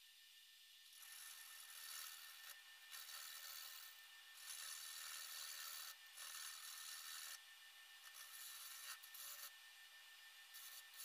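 A tool cutting into apple wood: a quiet, rasping hiss that swells and drops every second or two.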